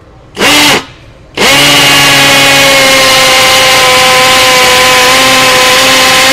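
Cordless hammer drill in concrete mode drilling into a concrete block at high speed. A short blip of the trigger is followed about a second later by a long continuous run, loud, with a steady whine at an even pitch.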